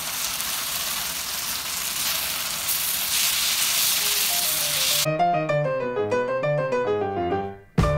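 Shredded pork carnitas sizzling in a hot skillet as they are stirred for the last time, the liquid nearly cooked down. About five seconds in the sizzling cuts off and background music of short, quick notes takes over, fading out near the end.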